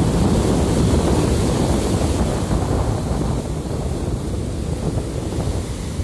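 Sea waves breaking close by and foam rushing up the beach, with wind buffeting the microphone. The surf is loudest in the first half and eases off after about three seconds.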